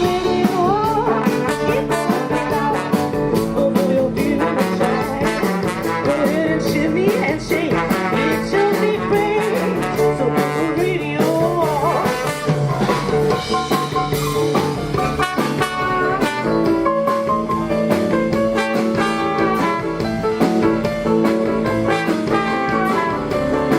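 Live New Orleans jazz band playing, with brass horns, guitar and drums. Some horn or vocal lines slide in pitch.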